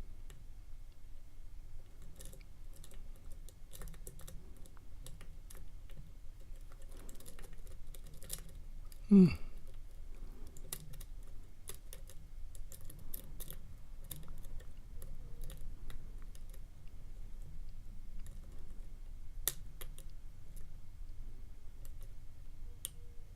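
Lock pick ticking and scraping against the pins of a pin tumbler lock while the picker feels through the pin stack, a scattered run of small clicks. About nine seconds in, one brief loud sound falls quickly in pitch.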